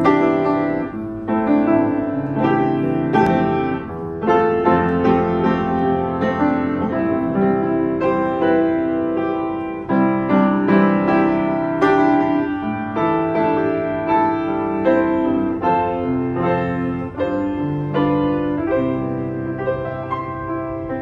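A 1981 Yamaha W106B upright piano being played for a sound check: a continuous flowing passage of melody over chords, notes struck in quick succession.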